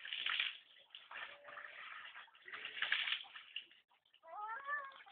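A hand-operated water pump being worked, water splashing out in surges every two to three seconds, followed near the end by a short rising squeal.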